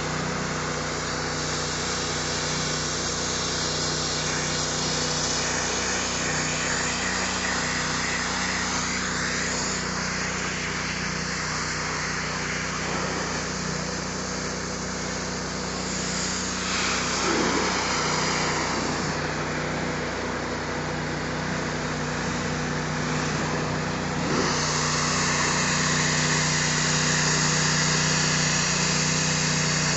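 Engine-driven pressure washer running steadily under the hiss of its high-pressure water jet blasting a concrete wall cap. The spray gets a little louder about two-thirds of the way through.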